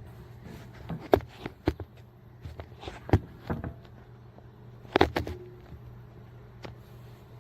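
Irregular hard clicks and knocks of objects being handled and set down, the loudest about a second in, at about three seconds and at about five seconds, over a steady low hum.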